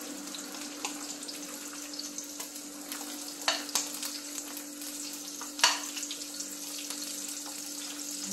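Dried salted fish (tuyo) sizzling and crackling as it fries in hot oil in a pan, with a metal spatula clinking against the pan a few times, loudest about five and a half seconds in.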